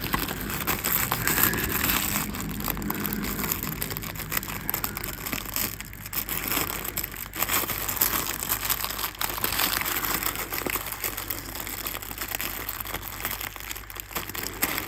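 Packaging being opened by hand: continuous rustling and crinkling with many small irregular crackles.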